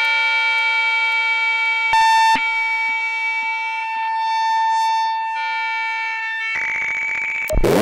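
Korg MS-20 analog synthesizer playing a self-playing patch through delay and reverb: a held, siren-like pitched drone with slow low glides underneath and a brief accented jump about two seconds in. Near the end a hiss of noise rises under the tone, then a sharp hit sets off fast sweeping, bouncing pitch glides.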